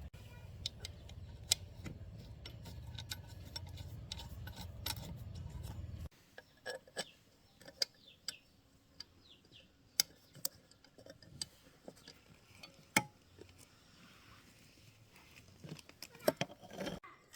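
Scattered metallic clicks and clinks of small parts and tools being handled, over a low steady hum that cuts off abruptly about six seconds in.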